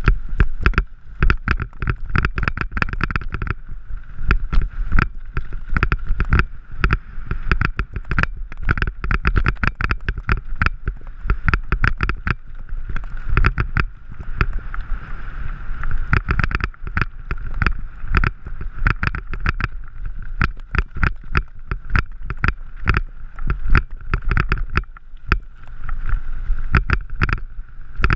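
Mountain bike riding over a rocky gravel trail, picked up by a camera on the bike: a constant, irregular rattle of knocks and jolts as the tyres hit stones, over a low rumble of wind and vibration.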